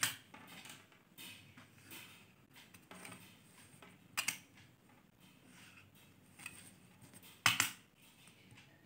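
Faint handling sounds of a plastic ruler and marker on a thin tin disc, scraping and tapping, with a few sharper clicks; the loudest comes about seven and a half seconds in.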